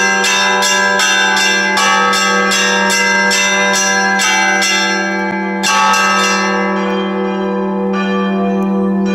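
Church bells ringing: several bells struck in quick succession, about three strikes a second, over a steady low hum. The strikes stop about five seconds in, one more strike follows, and the bells ring on and fade.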